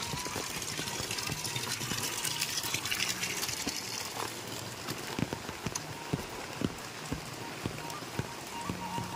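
Light rain falling: a steady hiss, with scattered sharp taps from about halfway through.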